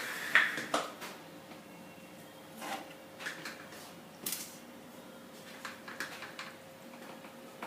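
A cat eating a piece of freshly cooked fish: scattered soft clicks and smacks of chewing.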